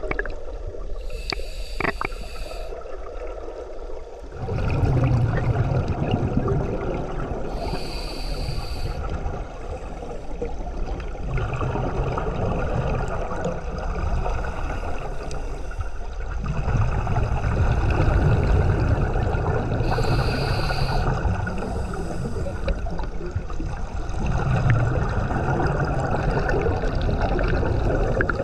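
Underwater rumble and gurgle of hardhat divers' exhaust bubbles venting from their helmets, swelling in long surges about every six seconds as they breathe out.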